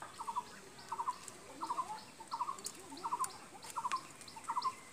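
Faint chirping calls, each a quick run of three or four short notes, repeated about every two-thirds of a second, with a few light clicks among them.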